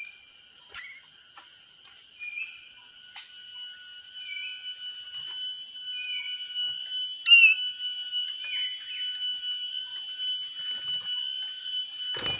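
Short bird calls every second or two over a steady high-pitched drone, with a second, lower steady tone joining about a third of the way in. A loud burst of noise sets in right at the end.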